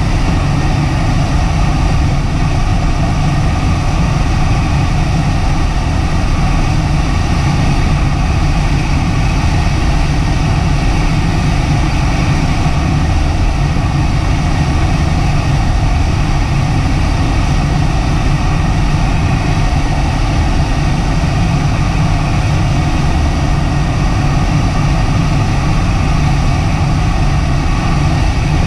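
Steady rush of airflow over a DG-800 glider's cockpit canopy in flight, heaviest at the low end, heard from inside the cockpit with wind buffeting the microphone.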